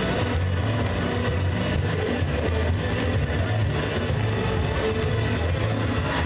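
Rock-style music with a strong bass line playing over a gym's public-address system during a break in play.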